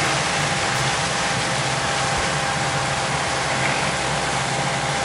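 Sailboat's inboard diesel engine running steadily while the boat motors along at about 5 knots, under an even hiss.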